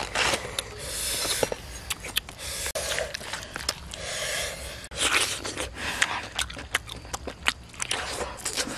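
Close-up food-handling sounds with many small clicks and crackles: a knife cutting into roasted pig head, then a hand squishing and mixing chili dip in a clay mortar, and chewing near the end.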